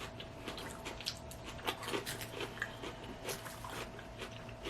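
A person chewing a mouthful of salad, with irregular small wet clicks and crunches.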